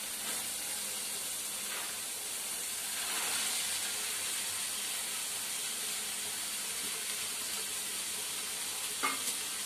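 Tomato-onion masala sizzling steadily in hot oil in a kadai as sprouted moong beans are tipped in.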